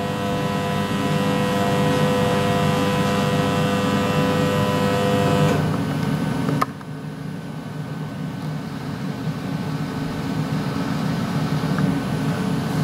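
SkyfireCNC SVM1VMC CNC milling machine powering up: a steady hum with a whine of several held tones. The whine stops about five and a half seconds in, and a sharp click follows a second later. After the click a lower, quieter hum carries on while the controller boots.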